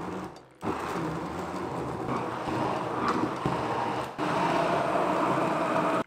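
Hand-held immersion (stick) blender running in a tall glass, puréeing burger and French fries in water into a thick mush. It stops briefly about half a second in, starts again, and dips for an instant just after four seconds before running on slightly louder.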